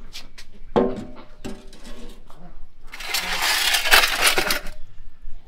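Metal clanks and knocks as the wood-fired oven's metal door is handled and set aside. About three seconds in, a loud scrape lasting nearly two seconds as a metal baking tray is slid across the oven's stone hearth.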